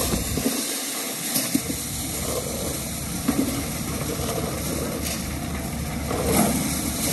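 Tractor-driven maize sheller running: a steady, noisy mechanical din with a few faint knocks.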